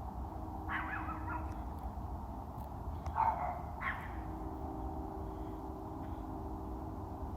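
A dog barks about three times, about a second in, then twice close together around three to four seconds in, over a steady low rumble.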